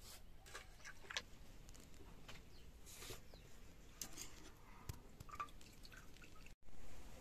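Faint, scattered drips and small clicks of water falling from wet hands into an aluminium pot. Near the end the sound cuts out for a moment, then a brief, louder stretch of background noise follows.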